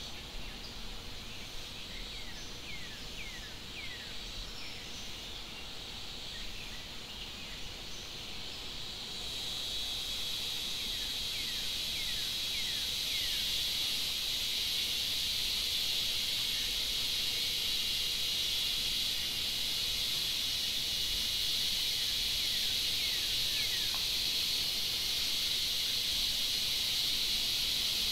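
Forest insect chorus: a steady high hiss that grows louder about a third of the way in. Runs of short, falling bird chirps come through it a few times.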